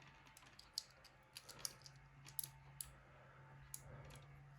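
Faint, scattered small clicks and taps of plastic phone parts being pressed and fitted together by hand, as a Nokia E71's vibration motor is worked into place in the housing, over a low steady hum.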